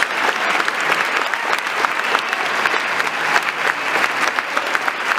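Large audience applauding, a dense steady clatter of many hands clapping.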